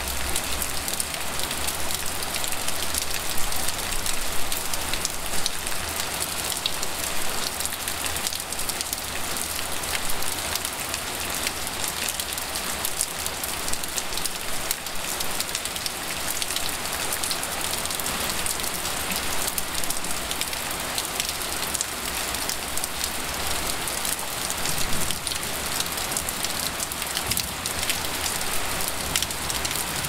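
Heavy rain falling outdoors close to falling water: a steady, dense patter of countless drops with a low rumble underneath. Recorded in mono on a handheld recorder's built-in mic with no low-cut filter.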